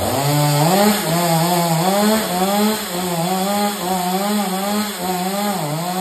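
Two-stroke chainsaw opened up to full throttle and cutting into a coconut palm trunk. The engine jumps from idle at the start, then its pitch wavers up and down as the chain bogs and frees in the cut.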